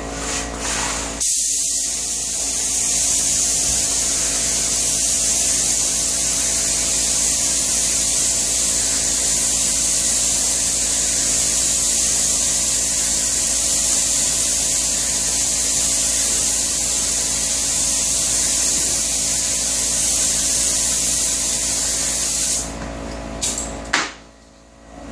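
Gravity-feed air spray gun spraying a clear top coat of finish onto cabinets: a steady, loud hiss of air and atomised finish that starts about a second in and stops a few seconds before the end, followed by a couple of short blasts.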